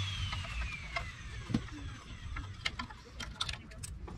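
Hand tools working on the carburetor and linkage of a small Briggs & Stratton engine, giving scattered light metallic clicks and taps. A steady hum stops right at the start, and a thin whine keeps falling in pitch over the first couple of seconds.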